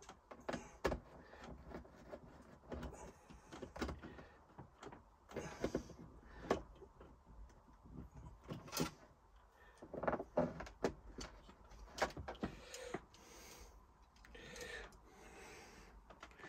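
Small screws being undone and a plastic USB socket unit being worked out of a wooden wall panel: quiet, irregular clicks, knocks and scrapes of handling.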